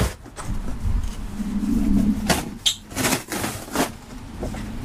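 Cardboard box flaps and plastic packing rustling and knocking as a child's bike with training wheels is pulled out of its shipping box, with a brief low hum about one and a half seconds in.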